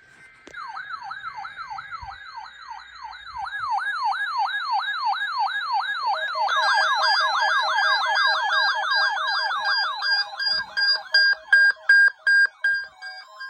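Weather radio receivers sounding their alert alarms for a NOAA weather radio test. A siren-like tone sweeps downward about three times a second. About six seconds in, a second, faster sweeping alarm joins it, and loud pulsed beeps take over near the end.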